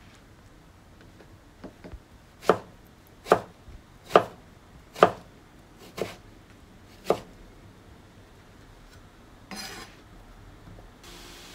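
Kitchen knife slicing peeled eggplant into thin strips on a plastic cutting board: six firm knocks of the blade through to the board, about one a second, with a few lighter taps before them. A brief rustle follows, then a faint steady hiss comes in near the end.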